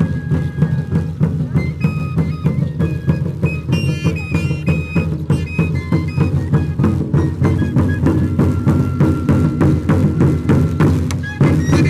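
Andean huayno music: a drum keeping a steady beat under a high melody line, growing louder just before the end.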